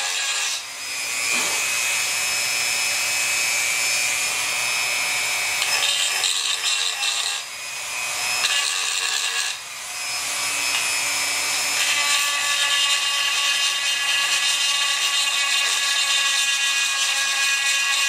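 Dremel 4000 rotary tool with a porting bit running at high speed, grinding the ports of a Chinese 80cc two-stroke bicycle engine cylinder: a steady high whine over a grinding hiss. It dips briefly three times, and the whine changes pitch about two-thirds of the way through.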